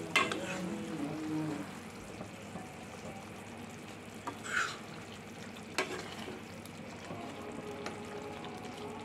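Thick chicken gravy sizzling and bubbling in a nonstick pan as a plastic spatula stirs it, with a few sharp knocks and scrapes of the spatula against the pan.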